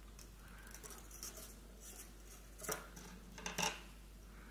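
Faint rustling and small clicks of thin craft wire and crystal chips being handled while wrapping a metal hoop, with a few sharper clicks and knocks about two and a half to three and a half seconds in as the hoop is set down on the table.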